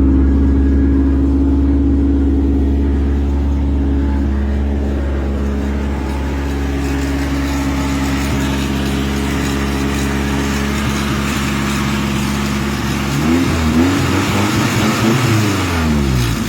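Nissan 240SX engine idling steadily, then revved up and let fall back twice near the end, the pitch rising and dropping before settling back to idle.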